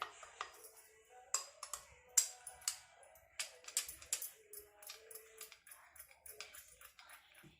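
Irregular light clicks and taps, several a second, the sharpest about 1.3 and 2.2 seconds in.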